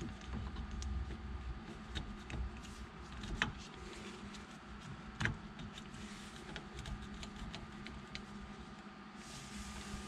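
Faint handling sounds of a plastic turn signal switch assembly being worked into place on a steering column: scattered small clicks and taps, two louder knocks a little over three and about five seconds in, over a steady low hum.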